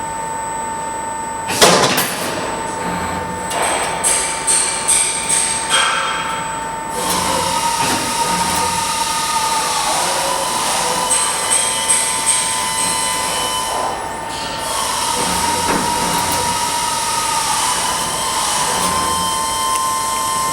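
Wire bending machine running: a steady motor whine, one sharp clank about two seconds in, then a run of about six quick strokes, followed by continuous mechanical working noise with a short lull near fourteen seconds.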